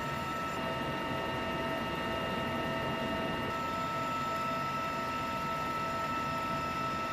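CH-53E Super Stallion heavy-lift helicopter running steadily: a constant high turbine whine over dense engine and rotor noise.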